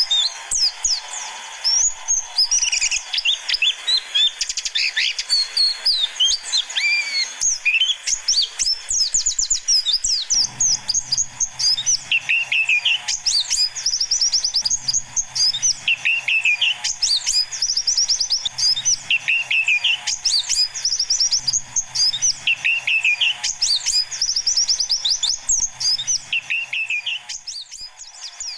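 White-eyes (pleci), young wild birds, chirping and twittering in dense, fast high-pitched trills. From about midway, a lower call repeats roughly every two seconds over a faint low hum.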